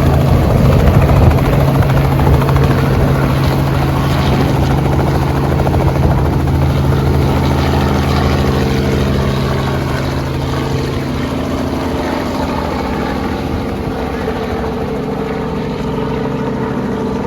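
A helicopter close by: a steady rotor chop over a pitched engine hum, loud at first and slowly growing fainter. It is a reconnaissance helicopter checking that a larger supply helicopter can land.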